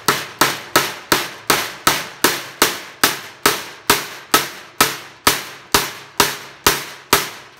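Steel claw hammer driving a nail into a pine birdhouse board: a steady run of about seventeen sharp, loud blows, a little over two a second, each with a short ring.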